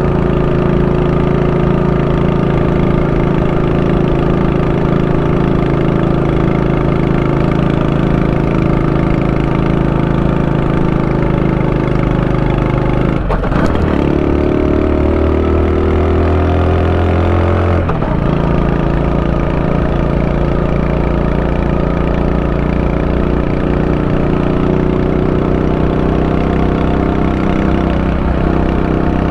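Honda Super Cub 90's single-cylinder four-stroke engine running at a steady note. About halfway through, the note changes for a few seconds, then settles back to the steady run.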